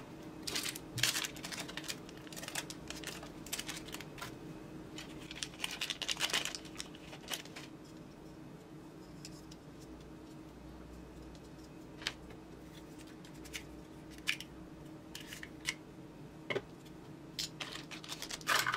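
Clear plastic accessory bags being handled: crinkling rustles in bunches over the first half, then scattered light clicks and taps as small plastic camera parts are picked up and set down on the mat. A faint steady hum runs underneath.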